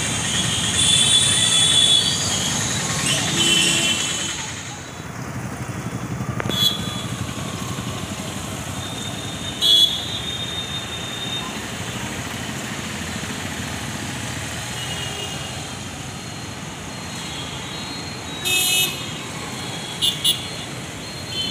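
Slow road traffic with a steady engine and road noise, cut by several short vehicle horn honks, the last a quick double toot near the end.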